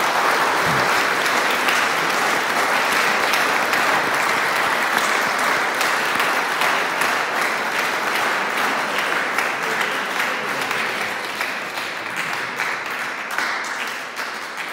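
Congregation applauding, a long, steady round of clapping that eases off slightly near the end.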